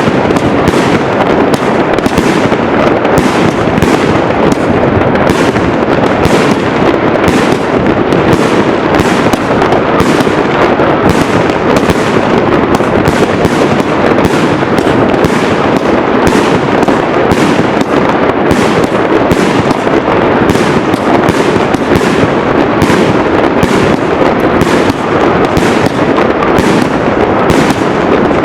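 Fireworks going off in a dense, unbroken barrage: rapid bangs and crackles, many a second, without a pause.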